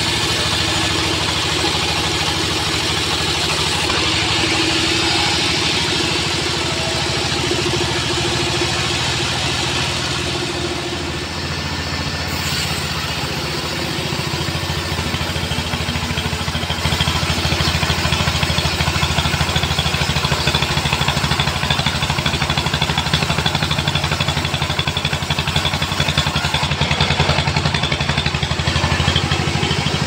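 Sawmill bandsaw running steadily while its blade saws lengthwise through a weru log, over the continuous drone of the mill's drive. It gets louder a little past halfway.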